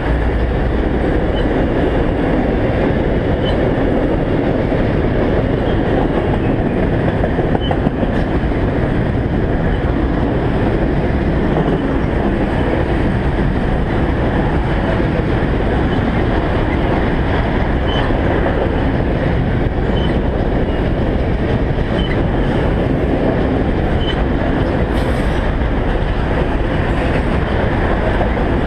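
Freight train cars rolling past, a steady loud rumble of steel wheels on the rails with faint regular clicks.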